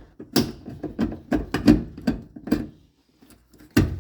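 A fast run of sharp clicks and knocks for about two and a half seconds, then a single louder knock near the end: a washing machine's inlet solenoid valve being twisted and worked free of its mounting.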